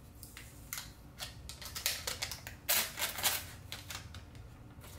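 Crinkling and rustling of the protective wrap as it is peeled off a MacBook Pro power adapter and its coiled cable: a string of short crackles, loudest about three seconds in.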